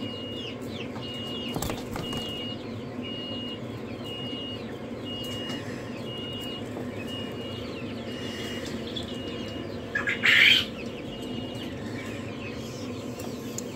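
Young quail in a brooder cage chirping and peeping, with a high, evenly repeated peep through most of it and a brief louder burst of noise about ten seconds in.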